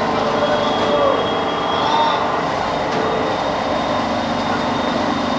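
Steady loud machinery noise of a steel fabrication shop, with a few short high squeals and whines over it.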